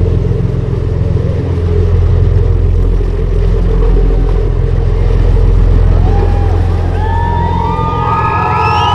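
A loud, steady low rumble with a deep hum. From about six seconds in, several overlapping high whistle-like tones join it, each sliding in, holding and sliding away.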